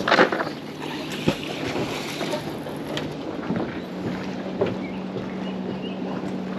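A steady low engine-like hum that steps up in pitch a little before the middle, over wind noise on the microphone, with a brief rush at the start and a few faint knocks as the magnet rope is thrown and pulled in.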